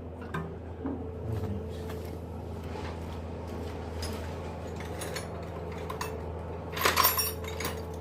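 Metal hand tools clinking and clattering: sockets and spanners being handled, with a few light clicks and a louder clatter about seven seconds in.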